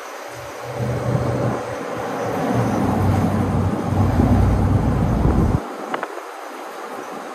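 Vehicle engine and road noise heard while driving: a low, pitched rumble that builds over a few seconds and then cuts off suddenly about five and a half seconds in, leaving a quieter hiss.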